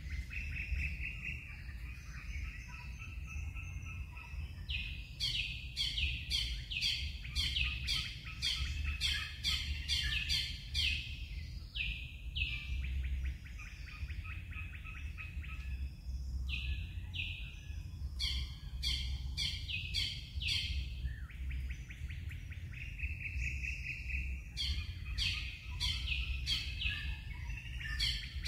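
Wild birds calling: bouts of quick, repeated, downward-sliding notes with buzzy trills in between, over a steady low rumble.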